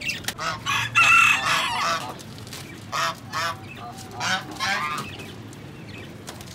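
Domestic geese and chickens calling: a string of short honks and clucks, with one longer call about a second in.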